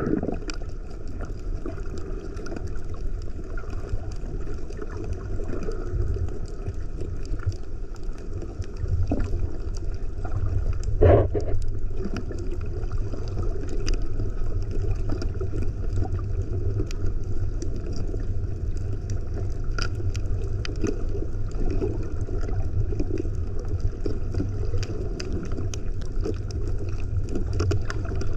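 Underwater ambience picked up by a camera submerged on a coral reef: a steady low water rumble against the housing with faint scattered crackling clicks. A short bubbling gurgle comes at the very start and again about eleven seconds in.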